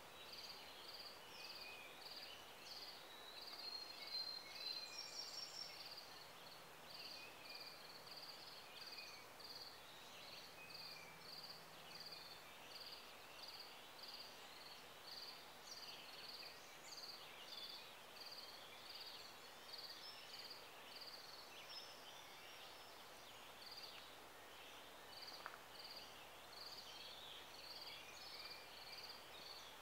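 Faint woodland ambience: a high chirp repeats evenly, a little under twice a second, with scattered songbird calls over it.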